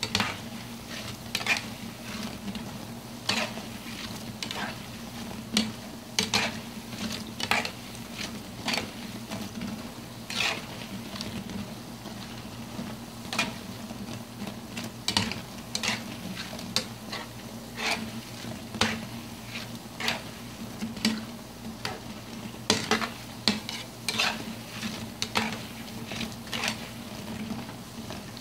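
Dough balls deep-frying in hot oil, a steady sizzle, while a spoon stirs and turns them, scraping and knocking against the pan in irregular strokes about every second or so.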